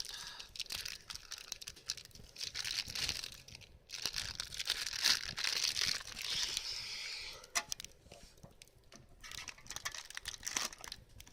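Plastic food packet crinkling as it is handled and torn open, in uneven crackly bursts, loudest in the middle, with a few sharp crackles toward the end.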